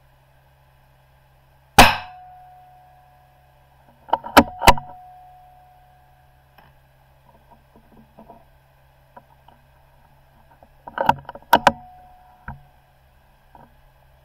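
A single .22 rimfire rifle shot about two seconds in, followed by two groups of sharp metallic clacks from the rifle's bolt being worked to eject and reload.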